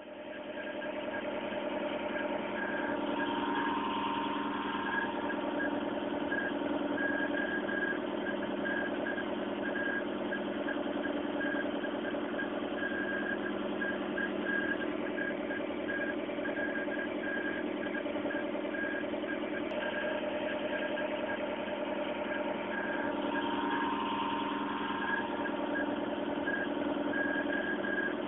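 A vehicle engine running steadily, with a brief swell about four seconds in and again a few seconds before the end.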